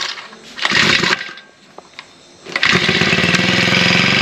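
Balwaan four-stroke brush cutter engine being pull-started by its recoil cord: a pull about a second in, then the engine catches about two and a half seconds in and runs steadily.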